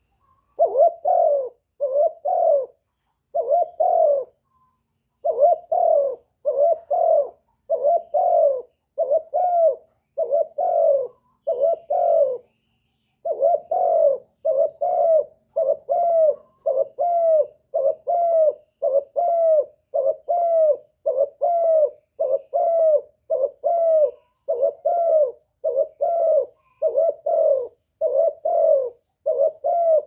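Spotted dove (cu gáy) cooing: a long run of short, evenly spaced coos, about one and a half a second, broken by brief pauses near the start and about twelve seconds in.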